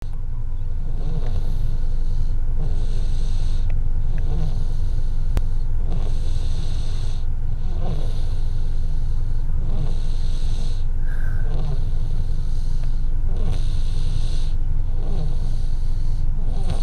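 Soft, rhythmic snoring of a sleeper, one breath about every one and a half to two seconds, over a steady low rumble.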